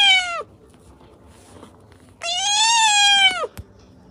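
Tabby cat meowing twice, long drawn-out meows that rise and then fall in pitch. The first trails off about half a second in, and the second, lasting just over a second, comes about two seconds later.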